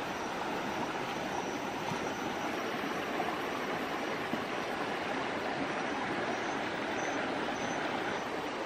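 Shallow stream flowing over rocks, a steady even rush of water.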